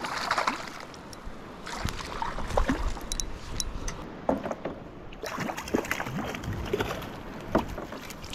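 Water splashing and sloshing around a small boat, with irregular knocks and clicks, as a hooked Australian salmon is played and brought in.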